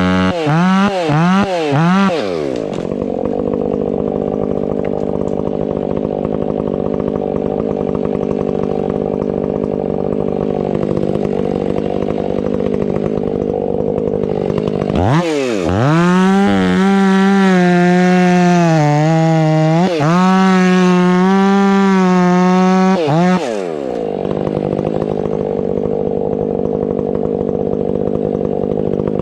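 Stihl 500i fuel-injected two-stroke chainsaw blipped at full throttle a few times and then dropping to idle. About 15 seconds in it is opened up again for some eight seconds, its pitch sagging briefly twice under load as it bites into wood, then it falls back to idle.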